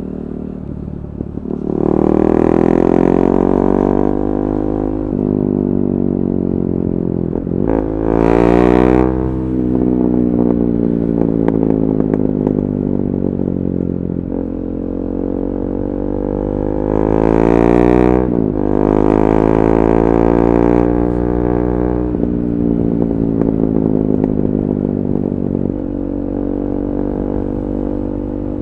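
KTM 390 Duke's single-cylinder engine through an Akrapovic Moto2 slip-on exhaust with the catalytic converter removed, revved up sharply twice, about 8 and 17 seconds in, with a louder bark at each peak. After each peak the pitch falls slowly over several seconds.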